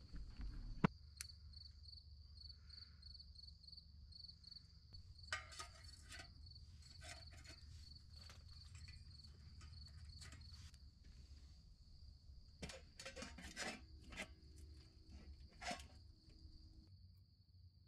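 Crickets chirping, a faint high pulsing chirp a couple of times a second that runs together into a steadier trill later on. Over it come scattered light clicks and knocks from handling a small wood-burning camp stove and setting a stainless pot on it.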